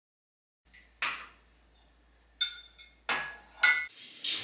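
Kitchen clatter: dishes and utensils clinking and knocking in a handful of separate hits, some with a short ringing tone, the loudest about three and a half seconds in.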